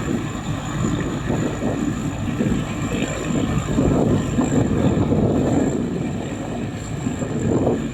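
Rice combine harvester running, a steady engine rumble that swells and eases slightly, with a thin steady high whine above it.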